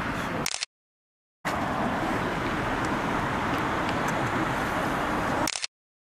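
Steady hum of engines and road traffic, likely from the parked motorcycles idling amid city traffic. It drops to dead silence twice, briefly, at cuts between clips.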